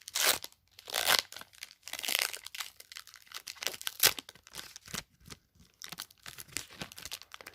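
Trading cards and pack wrapper being handled: a run of irregular papery rasps and crinkles as cards slide against each other, with the strongest ones near the start and about one, two and four seconds in.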